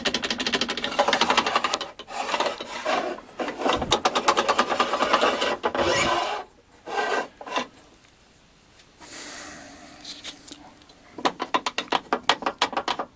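The miter gauge supplied with a Bosch PTS10 table saw, slid back and forth in the table's slot, scraping and rattling in rapid runs of clicks. It is a poor, loose fit, which the owner calls rubbish.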